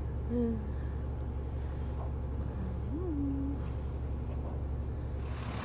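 Steady low drone of a city bus's engine and running gear heard from inside the passenger cabin, with a couple of brief wordless vocal sounds, one near the start and a short rising hum about three seconds in.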